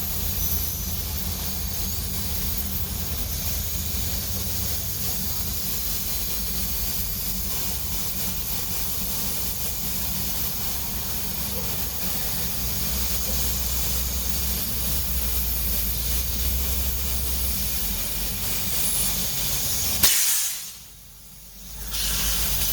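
Steady hiss of compressed air from an air line inflating a punctured motorbike tyre, with air escaping past a tyre plug that has not sealed the hole; a low hum runs underneath. Near the end the hiss cuts off with a click, drops away for a moment, then comes back.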